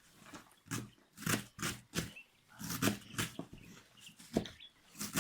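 Wild mallow (khobiza) being cut by hand: irregular short rustling snaps of stems and leaves, about two a second.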